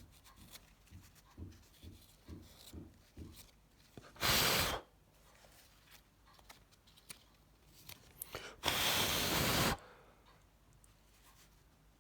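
Two short hisses of blown air, the first about half a second long and the second about a second, clearing dust from a mobile phone's LCD screen. Soft taps and rubbing of handling come before them.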